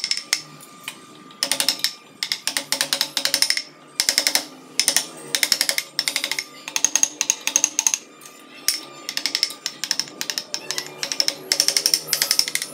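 Wood chisel driven by a small mallet into a wooden carving, in bursts of rapid light taps with short pauses between.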